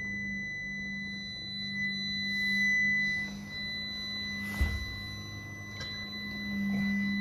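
Dell Alienware Aurora R13 desktop PC giving off a steady, high-pitched beeping tone over the low hum of its fans, with a single knock about four and a half seconds in. The owner could not locate the source inside the case and thought it was not the graphics card.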